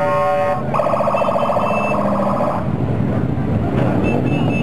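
Horn sounding from a passing parade motorcycle: one steady blast that ends about half a second in, then a warbling, siren-like horn for about two seconds. Underneath are the running engines of motorcycles riding slowly past.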